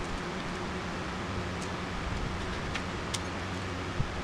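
Steady low hum and hiss of background noise, with a few faint light clicks.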